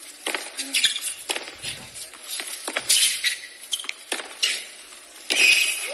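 Tennis rally on a hard court: racket strikes on the ball about once a second, with shoe squeaks between them. Crowd noise rises near the end as the point finishes.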